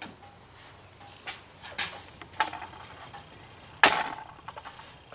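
Scattered clicks and knocks of hands and fittings being handled at the fuel filter's quick-connect fuel line couplings, with one sharper knock nearly four seconds in.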